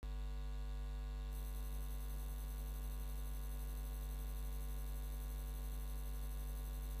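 Steady electrical mains hum: a low, unchanging buzz with a long row of overtones, like a ground-loop hum in an audio feed.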